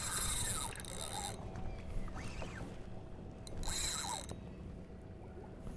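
Spinning reel's drag buzzing as a hooked fish pulls line off, in two runs: one of over a second at the start and a shorter one about three and a half seconds in.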